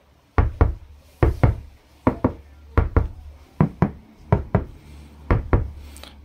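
Repeated double knocks on the roof of a Dacia Spring, about one pair a second. The roof panel is freshly lined with vibration-damping and foam sound-deadening layers, so the knocks no longer give the hollow, empty sheet-metal sound; the panel only moves a little.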